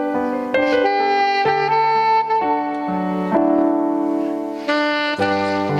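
Instrumental music: a saxophone melody of held notes over sustained chords.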